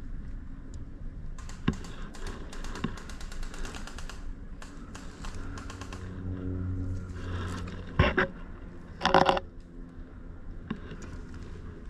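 Footsteps and gear rattling as an airsoft player moves on foot, with many small clicks and rustles. There is a sharp crack about eight seconds in and a short, loud pitched burst about a second later.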